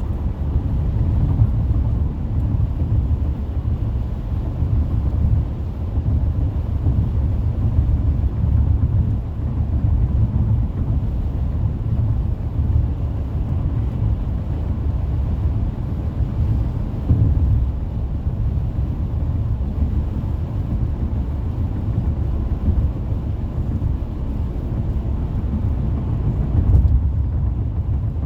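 Steady low road and tyre rumble of a car cruising on a freeway, with no radio or talking.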